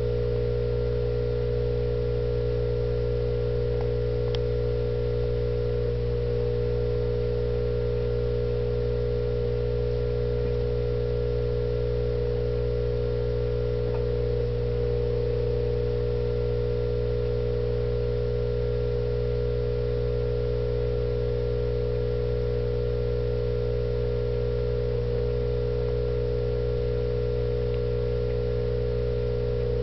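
Steady hum made of several fixed tones, strongest in the midrange, unchanging throughout, with a few faint ticks.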